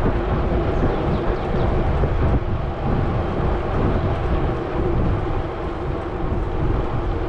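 Steady wind and road rumble on a bicycle-mounted camera's microphone as the bike rolls along a paved road.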